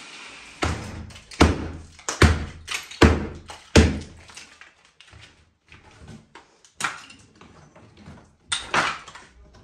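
A run of heavy knocks from kitchen demolition work, the first five evenly spaced a little under a second apart, then a few lighter scattered knocks and two more bangs near the end.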